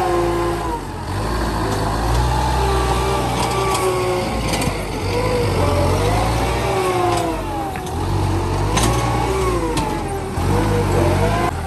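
Farm tractor's engine working as the tractor pushes and levels loose soil with a front blade. Its pitch rises and falls repeatedly with the throttle, and a few sharp clicks come through.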